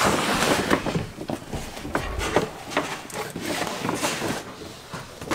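Rustling and crinkling of a large paper shopping bag being handled and opened, with scattered small knocks and clicks.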